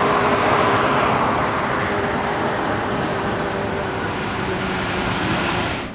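A Boeing 737 airliner's jet engines running steadily as it lands and rolls out along the runway: a broad rushing roar with a thin high whine over it. The noise fades slowly and cuts off abruptly at the end.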